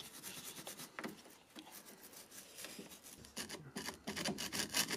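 A small hand tool scraping and scratching at a rusty brake caliper and pad bracket to clean off grime, in quick short strokes that get busier and louder after about three seconds.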